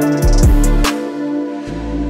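Background music with a drum beat and steady instrumental notes; the drums drop out about a second in and a low bass note comes in near the end.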